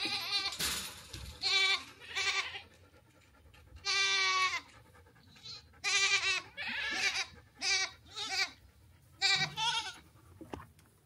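Goats bleating over and over: about a dozen short, quavering calls at differing pitches, with a longer bleat about four seconds in.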